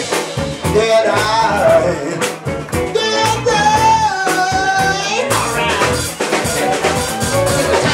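Live band playing with a singer: a sung melody over guitar, bass and drum kit, with one long held note from about three to five seconds in.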